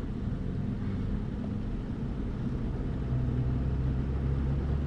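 Engine and road noise heard inside the cab of a Ford Super Duty pickup on the move: a steady low drone that grows a little louder about three seconds in.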